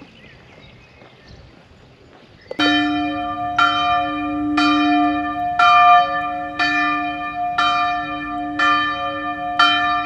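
A church bell tolling, struck about once a second from about two and a half seconds in, each strike ringing on into the next.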